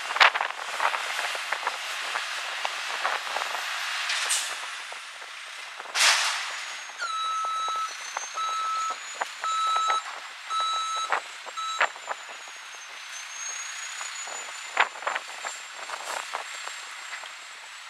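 McNeilus front-loader garbage truck: two air hisses, then its reversing beeper sounds about five times, once a second, as it backs up. Scattered clanks and knocks from the lift arms and steel container run throughout.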